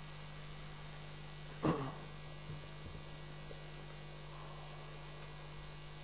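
Steady electrical mains hum, with one short voiced sound a little under two seconds in.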